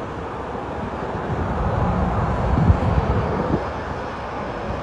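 Jet engine noise from an Airbus A350's Rolls-Royce Trent XWB turbofans on landing, a steady rushing sound that swells gently toward the middle.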